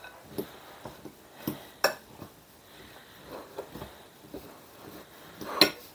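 A metal utensil stirring buttery cookie crumbs in a glass bowl: irregular soft scrapes and light clicks against the glass, with a sharp clink about two seconds in and the loudest clink near the end.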